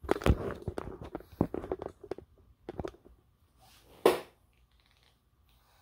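Handling noise from hands moving against the camera: a quick run of clicks, taps and rustles, then a few more, and one loud sharp burst about four seconds in.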